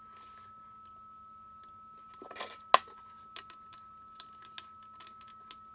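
Scattered small clicks and taps of tools and metal parts being handled during soldering work on a circuit board. There is a brief hiss a little over two seconds in, followed at once by a sharp click, the loudest sound.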